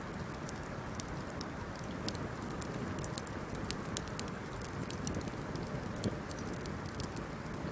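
Wood campfire burning: a steady rushing hiss of the flames with many small irregular crackles and snaps from the burning wood.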